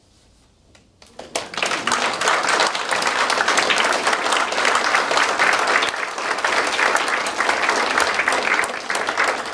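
Audience applauding. After a brief hush, many hands start clapping about a second in and go on steadily.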